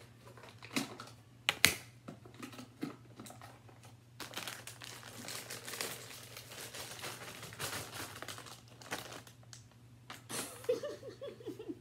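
Chip packaging being handled: a sharp snap about two seconds in, then a stretch of crinkling and clicking as a bag of Utz chips and a Pringles can with its plastic lid off are handled for chips.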